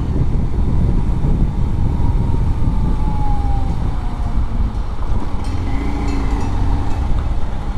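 Bajaj Pulsar 125 BS6 motorcycle's single-cylinder engine and exhaust running steadily at road speed, heard under heavy wind buffeting on the microphone. A faint whine falls in pitch a couple of seconds in.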